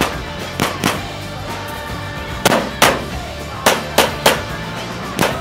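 Handgun shots fired in quick pairs and a fast triple during a practical shooting stage, about eight in all. Background music with steady low tones plays under the shots.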